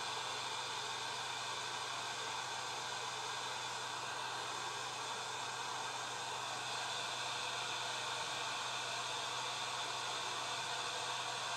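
Hot air rework gun's fan blowing steadily, a hiss of air with a low hum underneath, while its heater is on and warming up.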